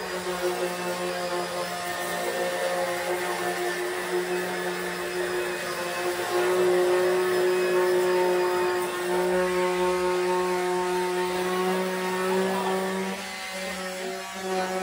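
Two cordless orbital sanders running steadily, their pads grinding over the bare sheet metal of a car hood. The motors make an even whine.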